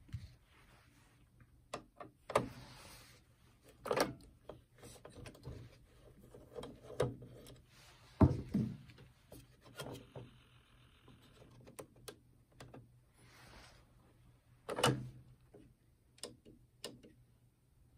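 Irregular clicks, knocks and rattles of hands handling the parts inside an open Aiwa NSX-350M stereo's CD changer. The loudest knocks come about 8 and 15 seconds in.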